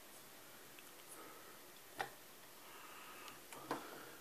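Quiet room with one sharp click about two seconds in and a few faint knocks near the end, from a hand handling a 1940s Sunbeam Mixmaster stand mixer. The mixer's motor is not running.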